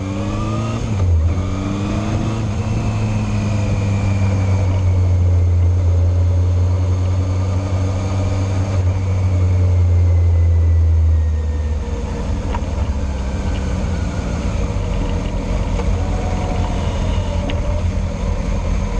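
Motorcycle engine heard from on board: it revs up through a gear change about a second in, holds a steady drone at speed, then eases off about eleven seconds in, with wind rush throughout.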